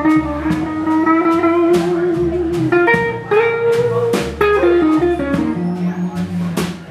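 Live blues band playing an instrumental passage: the electric guitar holds long notes and bends them, over a plucked upright bass line and steady drums and cymbals.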